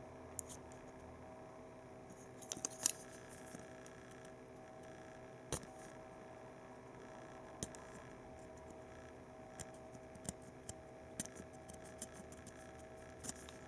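Scattered small clicks and light scrapes of plastic computer-mouse parts being handled and worked on to make a button part even and smooth. There are about a dozen sharp ticks, with the loudest cluster about two and a half seconds in, over a faint steady hum.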